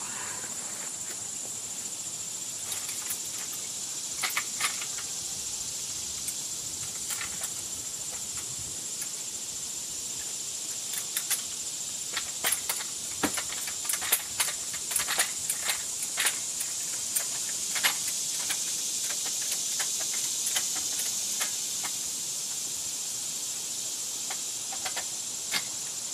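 Steady high-pitched drone of insects, with scattered short clicks and knocks from work under the truck, most of them in the middle stretch.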